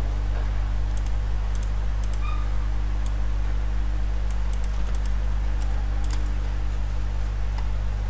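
Scattered faint clicks of a computer mouse and keyboard, a dozen or so spread unevenly, over a steady low hum.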